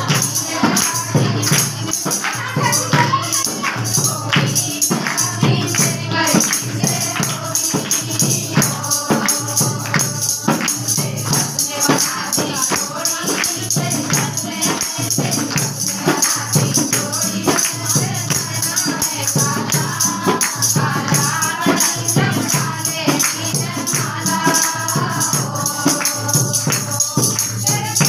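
Women singing a wedding folk song together over a fast, steady beat of drum and jingling percussion.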